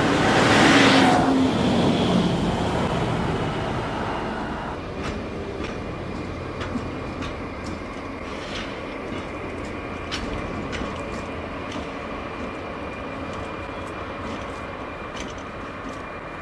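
Two diesel locomotives running light pass close by, loudest about a second in, with their engine note dropping as they go past. Then a slow container freight train rolls past, its wheels clicking over rail joints with a thin steady squeal.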